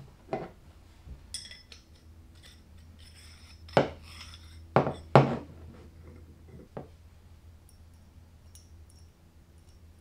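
Steel drill-rod handle and tubular chuck key body clinking together as the handle is fitted through the key's cross hole. A few sharp clinks with a short metallic ring, the loudest about four and five seconds in.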